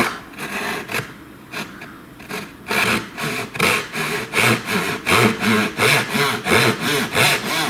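Japanese dozuki pull saw with coarse 15-teeth-per-inch teeth cutting a wooden block by hand. It starts with a few light strokes, then from about three seconds in settles into fast, even sawing strokes, about three a second.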